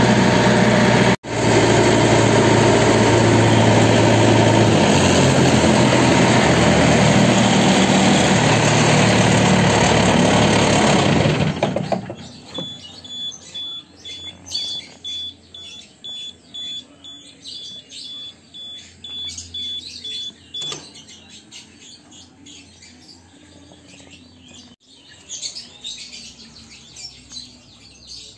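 Rice combine harvester's engine running loudly and steadily, then cutting off about twelve seconds in. Birds chirp after that.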